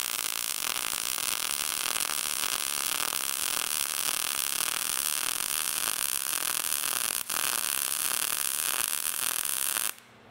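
Short-circuit MIG welding arc running a fillet weld on 14-gauge sheet steel with .030 wire: a steady, dense crackle. It breaks for an instant about seven seconds in and cuts off just before the end as the arc is stopped.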